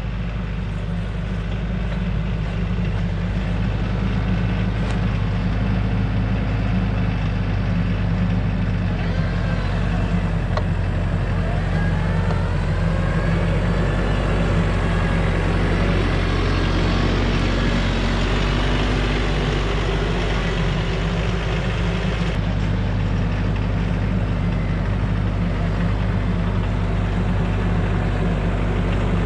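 A heavy vehicle engine running steadily under load, a low even hum that grows a little louder over the first few seconds.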